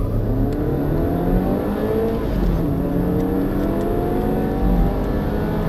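Two turbocharged four-cylinder petrol engines, a BMW 420i F32 and a Seat Leon 1.8 TSI, accelerating hard under full throttle, heard from inside the cabins. Their pitch climbs with road speed and drops back at gear changes.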